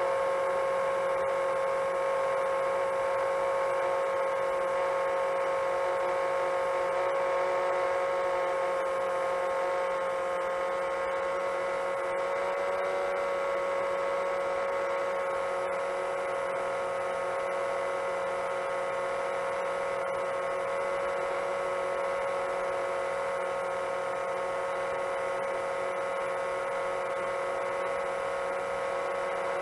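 Brushless motors and propellers of a 7-inch long-range FPV quadcopter in steady cruise, heard from on board as a continuous even whine, dipping slightly about ten seconds in.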